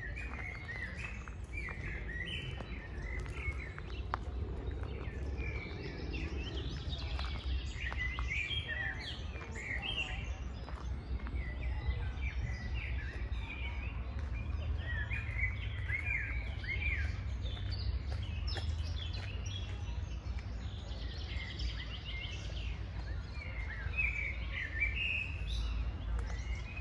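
Birds chirping and singing in many short, overlapping phrases, with a steady low rumble underneath.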